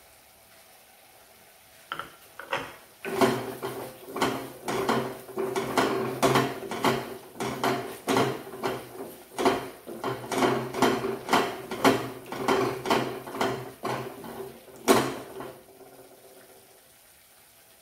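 Wooden spatula stirring and scraping a thick spice paste in a stainless steel kadai. Each stroke knocks the pan and makes it ring, at about two strokes a second. The stirring starts a few seconds in, and a louder knock comes near the end before it stops.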